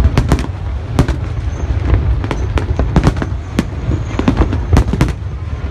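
Fireworks display: a fast, uneven run of sharp bangs and cracks, about three a second, over a steady low rumble of distant booms.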